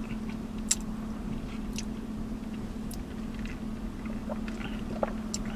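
Quiet mouth sounds of someone tasting a drink: a few scattered lip smacks and tongue clicks, then a sip from a foam cup near the end, over a steady hum inside a vehicle cab.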